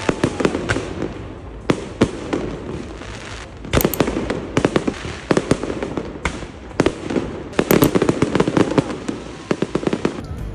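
Fireworks display going off: an irregular run of sharp bangs and crackles, busiest around four seconds in and again around eight to nine seconds in.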